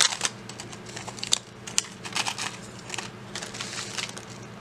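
Plastic bag crinkling and beaded costume jewelry clicking as it is handled: an irregular scatter of short, sharp crackles and clicks.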